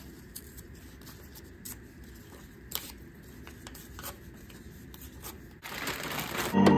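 Brown construction paper being torn by hand into small scraps: a faint scattering of short, crisp rips. Near the end a louder rustle of plastic comes in, then music starts.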